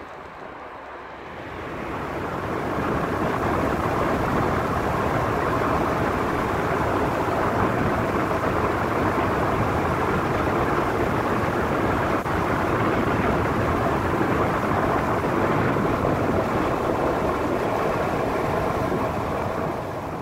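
Wind rushing over the microphone of a camera on a bicycle moving at speed, mixed with the rolling noise of the ride. It builds over the first couple of seconds, holds steady and loud, and eases off near the end.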